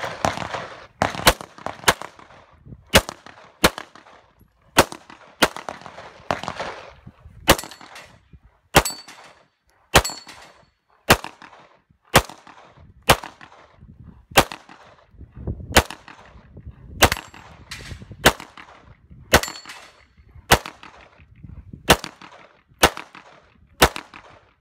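A handgun firing single shots at an unhurried pace, about one a second, some pairs closer together: roughly two dozen shots in all, each with a short echo. A few shots are followed by a brief ring.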